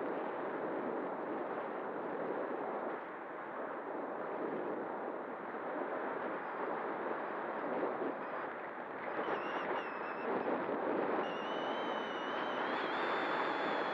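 Air rushing over the onboard camera's microphone of a small electric RC glider in flight. About nine seconds in, a high electric motor whine comes in briefly, then returns about eleven seconds in and holds steady, rising slightly in pitch.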